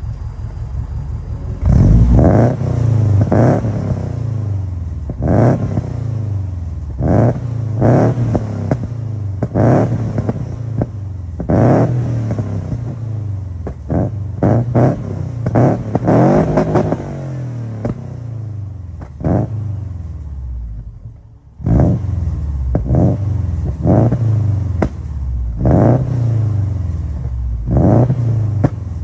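Subaru Legacy Outback boxer engine with unequal-length headers giving its uneven rumble at idle, revved in repeated quick throttle blips. After each blip the pitch falls back to idle. About two-thirds of the way through, the engine drops lower and quieter for a moment before the blips resume.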